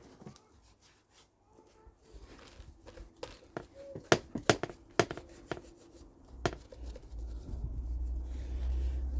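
Light clicks and knocks of strimmer engine parts being handled and fitted on a workbench, a cluster of them in the middle, followed by a steady low rumble from about two-thirds of the way in.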